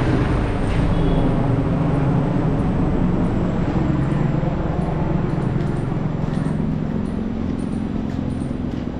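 Street traffic noise with a motor vehicle engine running steadily close by, over a continuous road-noise rush.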